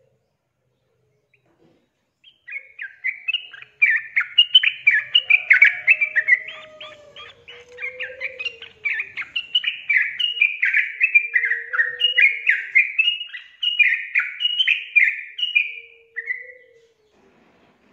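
Yellow-vented bulbul singing: a long run of quick, chattering phrases of repeated notes that starts about two seconds in, eases briefly about halfway through, and stops shortly before the end.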